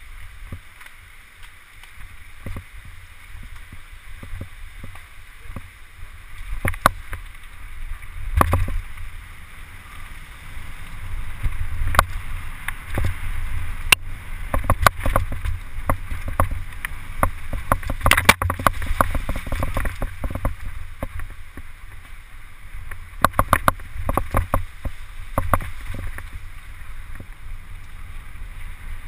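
Mountain bike riding fast down a rough forest singletrack: a constant low rumble of wind on the microphone and tyres on dirt, with frequent sharp clacks and rattles from the bike jolting over roots and rocks, thickest about 8 seconds in, around 18 seconds and again between 23 and 26 seconds.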